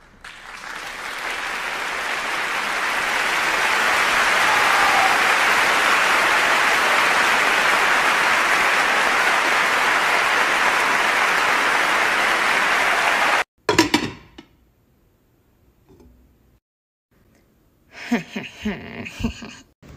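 Applause from a large crowd, swelling up over the first few seconds and holding steady, then cut off suddenly about thirteen seconds in.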